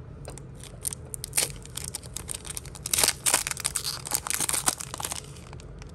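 Foil wrapper of a Topps Chrome baseball card pack being torn open by hand, crinkling and crackling unevenly, thickest from about three to five seconds in.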